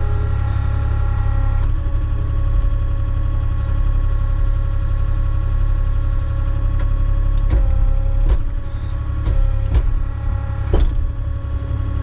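Avant 860i compact loader's diesel engine running steadily with a constant whine over the low rumble, and a few sharp knocks and clanks in the second half as the machine works.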